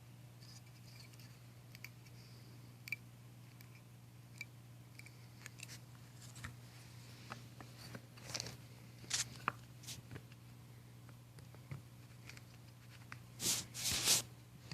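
Small plastic and metal door-handle parts being handled and pushed together by hand: scattered light clicks and taps, with a few short scraping bursts near the end as a piece that won't seat is worked at. A steady low hum runs underneath.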